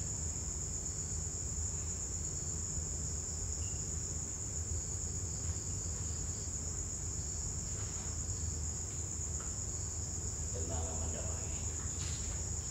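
Crickets trilling steadily at a high pitch, an unbroken night chorus over a low, steady rumble. Faint murmuring voices come in about ten and a half seconds in.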